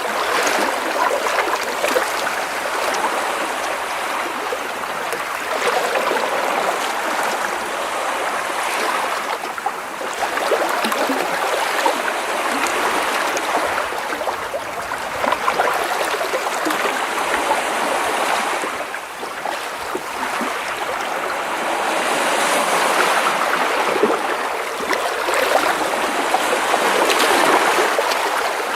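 Small sea waves splashing and washing against rocks close by, a continuous watery wash that swells and eases every few seconds, with lots of small splashes and trickles.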